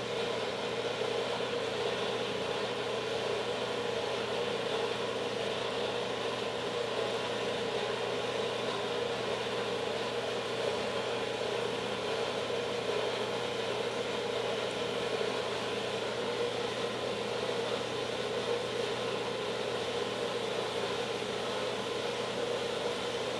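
Dayton horizontal bandsaw running steadily through a cut, its blade fully engaged in the part and feeding down slowly, with a constant motor hum beneath the cutting noise.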